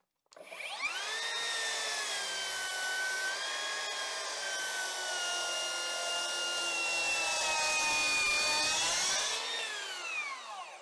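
Makita HS011G 40V Max XGT cordless circular saw spinning up, then ripping lengthwise along a 4x4 timber post on a guide rail: a steady high whine whose pitch sags slightly under the load of the cut. Near the end the pitch rises briefly as the blade clears the wood, then the motor winds down to a stop.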